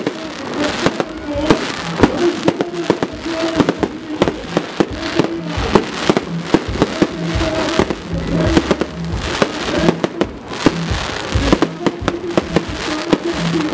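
Fireworks display with aerial shells bursting in rapid succession, a dense run of sharp bangs and crackles, over music playing underneath.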